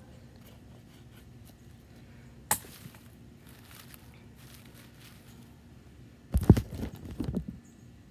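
Faint scrapes of a Mora Bushcraft knife shaving curls off a feather stick, a sharp click about two and a half seconds in, then a burst of loud knocks and rustling near the end as dry wood shavings are handled close to the microphone.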